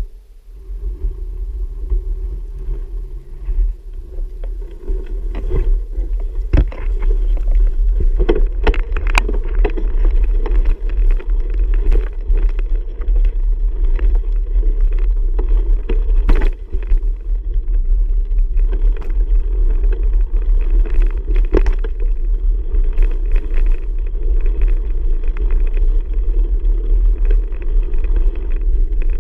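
Bicycle in motion: a steady rumble of tyres and wind on the camera's microphone, with scattered clicks and knocks from the bike over the trail.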